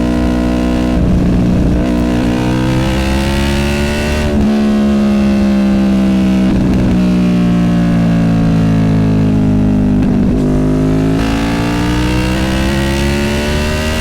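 Honda VFR800F's V4 VTEC engine running through an SC Project Conic exhaust while riding. The engine note climbs, drops sharply at a gear change about four seconds in, sinks slowly for several seconds, then climbs again near the end.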